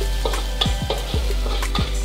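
Metal wok spatula scraping and clinking against the wok in quick repeated strokes as sliced aromatics stir-fry with a sizzle, over background music with a steady beat.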